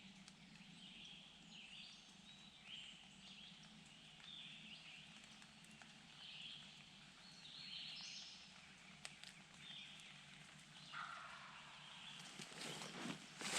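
Quiet woods with faint, short bird calls repeating every second or so. Near the end a louder, rough burst of noise comes in.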